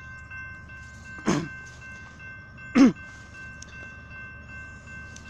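An approaching freight train at a grade crossing: a steady high ringing tone and a low rumble, broken twice by loud, short sounds that drop sharply in pitch.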